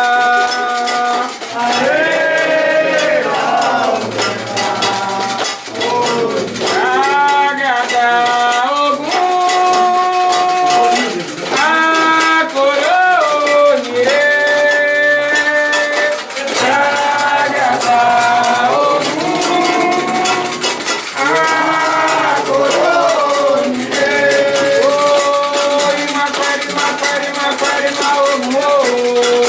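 Candomblé ritual chant: voices singing held, wavering melodic lines over a steady clanking metal bell and shaken rattles.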